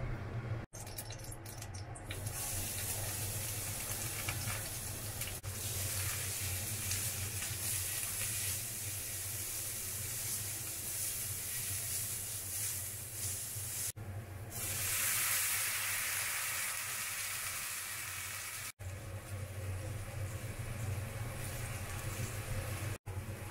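Dried daikon strips sizzling as they are stir-fried in oil in an iron frying pan. About two-thirds of the way through, a louder hiss comes as liquid meets the hot pan, then the sound settles to a quieter bubbling simmer over a low steady hum.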